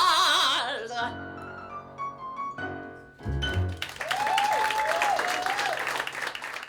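End of a sung song: a singer holds the last note with vibrato, then the accompaniment plays closing notes with a few low notes about three seconds in. From about four seconds a hissing, whistling noise with slow rising and falling tones takes over until it cuts off.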